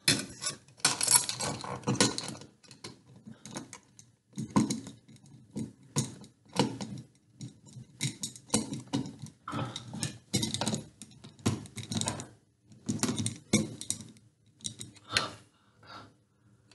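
Irregular clinks and rattles of small metal hardware being handled: a ceiling fan's mounting bracket and its screws being fitted up to the ceiling box.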